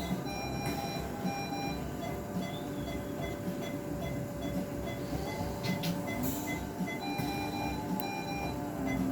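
Short electronic beeps repeating at a steady pace from surgical equipment, over a steady hum and quiet background music.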